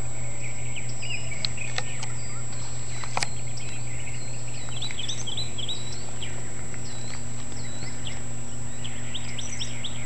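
Purple martins calling at a martin house: many short chirps sliding up and down and overlapping, getting busier from about halfway in, over a steady low hum.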